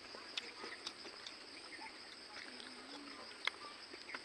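A few sharp clicks and crunches from eating, the loudest about three and a half seconds in, over a steady high drone.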